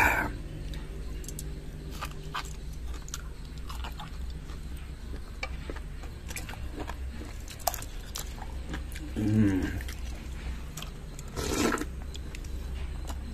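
A person chewing crisp raw mango slices coated in chili powder, close up: a scatter of small crunching clicks, with two louder mouth noises in the last few seconds.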